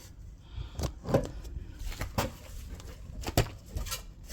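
Several separate metallic clinks and knocks as hand tools and the rusted-through exhaust pipe of a Mercedes W123 300D are worked loose and pulled free.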